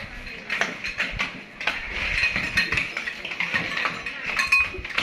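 Delman cart horse's hooves clip-clopping at an uneven pace, with light metallic jingling mixed in.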